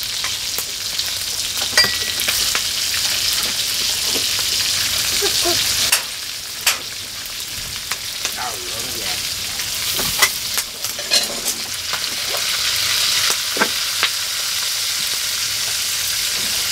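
Rats frying in hot oil in a pan: a steady sizzle with scattered sharp clicks and pops.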